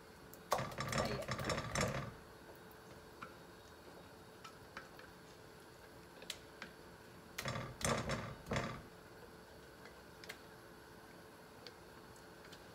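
A wooden spatula scraping and knocking blended spice paste out of a blender jar into a frying pan. There are two bursts of scraping and clatter, about half a second in and again about seven and a half seconds in, with scattered light ticks between.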